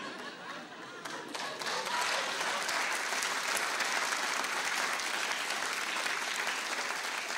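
Theatre audience applauding mid-scene, the clapping building up about a second in and then holding steady.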